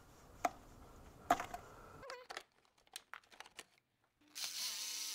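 Small clicks and clinks of hand tools and parts being handled in a car's engine bay, with two sharper clicks in the first second and a half, then a hiss lasting about a second near the end.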